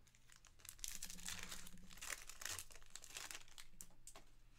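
Wrapper of a trading-card pack crinkling as it is torn open, starting about a second in and going on for nearly three seconds.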